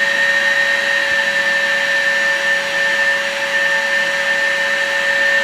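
Milwaukee M18 FUEL PACKOUT 2.5-gallon cordless wet/dry vacuum running with a loud, steady whine. Its hose is sealed under water in a bucket, so the motor is straining to draw the water up the hose.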